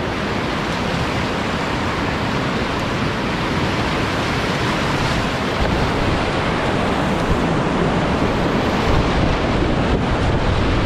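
Whitewater rapids rushing steadily around a kayak, heard close up from the boat, growing slightly louder toward the end.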